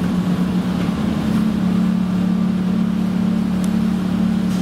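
A tram's low-voltage motor-generator set, a small DC motor spinning a generator that charges the 24-volt battery, running with a deep, steady rumbling hum while the tram stands still.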